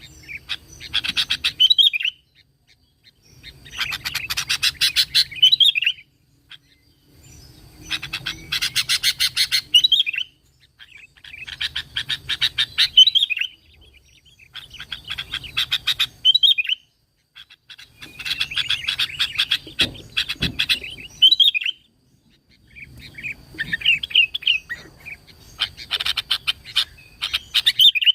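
Sooty-headed bulbul (kutilang) singing in repeated bouts. Each bout is about two seconds of rapid chattering notes that end in a few slurred whistles, and a new bout starts every three to four seconds.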